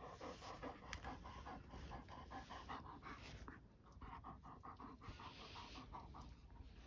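Large shepherd dog panting quickly and evenly, about five breaths a second, with a short pause about halfway through.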